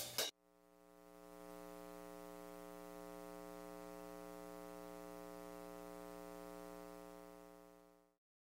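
A faint, steady synthesizer-like tone with many overtones, fading in over about a second, held on one pitch, then fading out shortly before the end.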